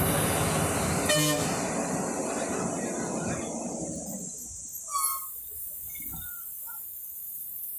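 Bus engine and road noise heard from inside the bus, with one short vehicle horn toot about a second in. The engine and road noise fades away after about four seconds, and a brief high beep sounds about five seconds in.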